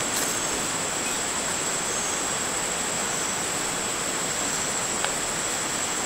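Steady rushing of water, an even roar that does not change, with a thin, steady high insect drone over it. A faint click about five seconds in.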